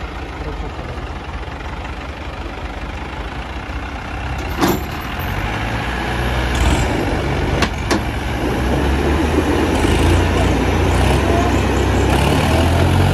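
Engines of a modified jeep and a tractor straining against each other in a chained tug-of-war. The engine note builds from about five seconds in and stays hard under load while the jeep's tyres spin in the dirt, with two sharp knocks along the way.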